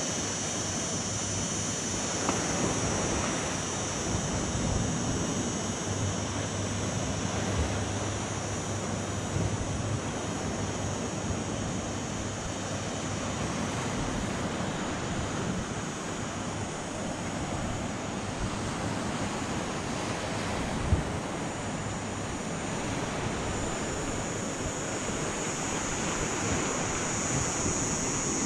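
Sea surf washing steadily against a rocky shore, with wind buffeting the microphone. One short knock about two-thirds of the way through.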